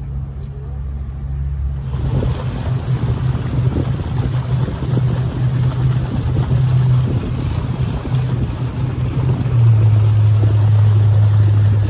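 Tour boat's motor running under way with a steady low hum. From about two seconds in, wind buffets the microphone and water rushes past. Near the end the engine note shifts and grows louder.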